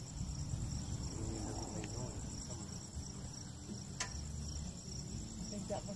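Crickets chirping in a steady, high-pitched pulsing chorus, with one sharp click about four seconds in.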